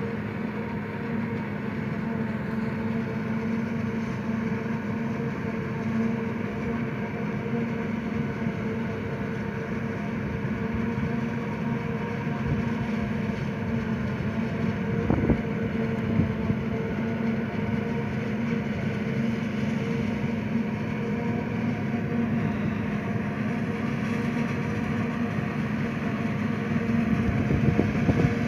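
Self-propelled forage harvester chopping standing maize: a steady drone of its engine and chopper, with the tractor pulling the trailer alongside. A single short knock about halfway through.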